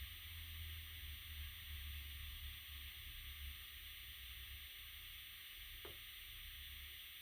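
Faint steady hiss over a low rumble that eases about three and a half seconds in; one brief faint sound, falling in pitch, about six seconds in.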